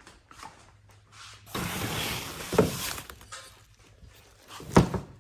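Handling noise as a Subaru top mount intercooler is brought out and set down: a rustle lasting about a second and a half with a knock in it, then a louder single thud near the end.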